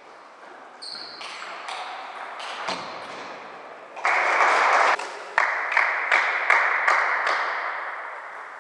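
Celluloid table tennis ball clicking against bats and the table in a rally, each click ringing in the hall. About four seconds in comes a loud rush of noise, then a run of evenly spaced ball clicks about three a second that fades away.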